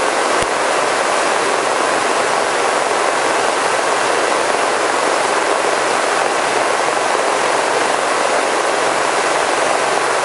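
Robinson R44 helicopter cabin noise in flight: an even, steady rush of rotor, engine and airflow, with faint low drones underneath.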